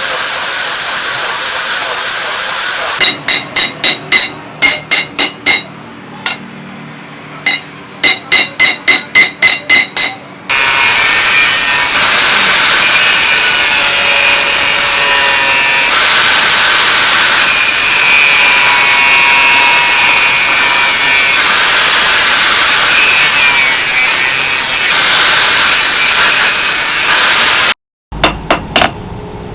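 Hammer blows ringing on steel, about two a second in two short runs, then a long loud steady rasping of a power tool working the knife, then more hammer blows near the end. It opens with a few seconds of hiss.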